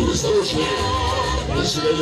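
Latin dance music played loud over a sonidero sound system, with a steady bass, percussion and a singing voice.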